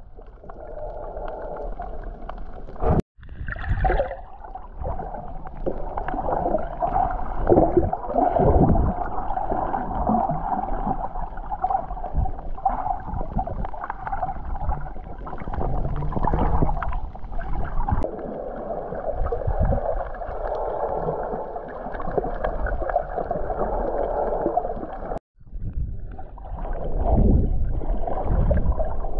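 Muffled underwater water noise picked up by an action camera held below the surface: gurgling and sloshing with low thumps, dull and without any high sound. The sound drops out briefly twice, once about three seconds in and once near the end.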